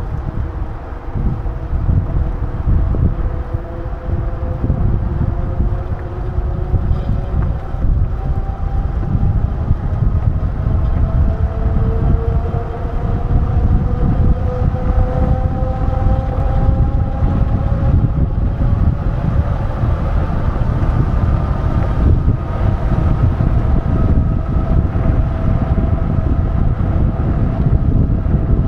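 Wind buffeting the microphone while riding a bicycle, a steady heavy rumble. Underneath it, a faint whine slowly rises in pitch.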